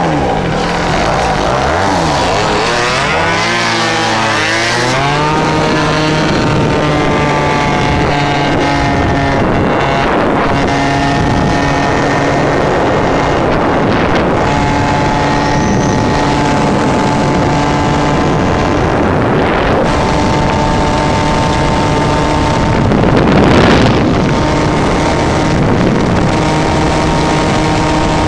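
50 cc two-stroke engine of a small motorbike or scooter pulling away from a stop: its pitch rises quickly for about three seconds, then holds steady and high at full throttle. Wind rushes over the microphone throughout, with a brief louder rush near the end.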